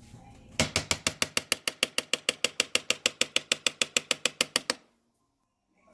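Rapid, very even clicking, about seven clicks a second for about four seconds, which then cuts off abruptly into complete silence.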